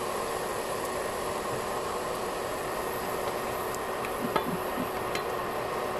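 Diced tomatoes, onions and garlic sizzling steadily in hot olive oil in a frying pan, with a few small pops and one sharp click about four and a half seconds in.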